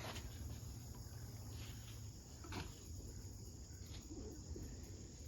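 Faint outdoor ambience: a steady low rumble with a soft background hiss, and one brief rustle about two and a half seconds in.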